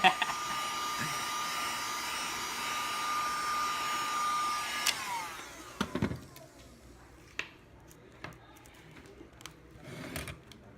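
Heat gun blowing steadily with a whine, switched off about five seconds in, its fan winding down in falling pitch. A few light clicks and taps follow.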